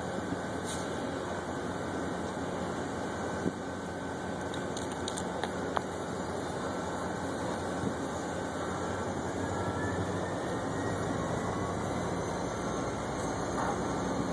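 Steady low rumble and hum of a freight train at a grade crossing, with a few faint clicks.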